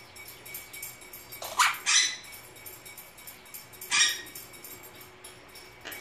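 Monk parakeet giving short, high, squeaky calls: two close together about one and a half seconds in, and another about four seconds in.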